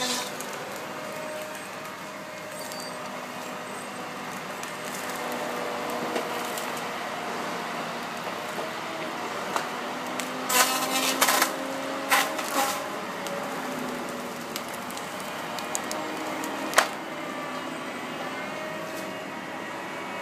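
Feller buncher's engine running steadily while its cutting head saws through snow-covered spruce trees. Loud cracking and splintering of wood comes in two clusters about halfway through, with one sharp crack near the end.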